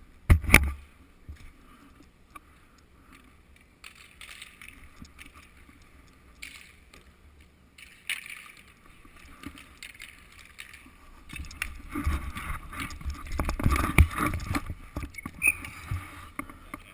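Roller hockey play heard from the goalie's helmet camera: a low rumble with scattered clicks and scrapes of sticks and inline skates. There are two sharp knocks right at the start, and a louder stretch of clatter and rumble about twelve to fifteen seconds in as players skate into the crease.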